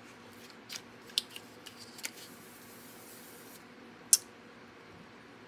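Cardstock being pressed and handled on a glass craft mat: a few sharp paper clicks and snaps, the loudest about four seconds in, with a soft rubbing hiss in the middle.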